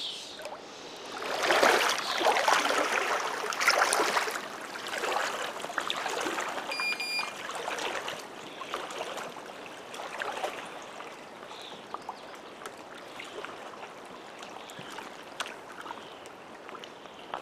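Shallow lake water splashing and sloshing around a person wading in waders, loudest in the first few seconds, then lapping and trickling more quietly. A single short, high electronic beep sounds about seven seconds in.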